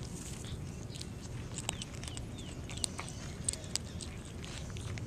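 Kittens crunching dry cat kibble from a plate: irregular sharp crunches and clicks over a steady low background noise.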